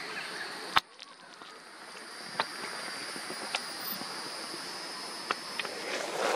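Steady high-pitched drone of an insect chorus. A sharp click sounds under a second in, with a few fainter ticks after it.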